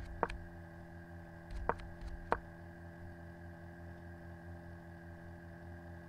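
Three sharp computer input clicks in the first two and a half seconds, stepping the on-screen chess moves forward, over a steady hum.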